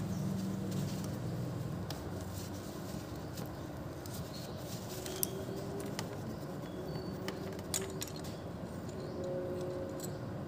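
Quiet hand-work on a motorcycle engine: a tissue rubbed around the oil filler cap, then a few light clicks as the plastic cap is gripped and unscrewed, over a low background hum.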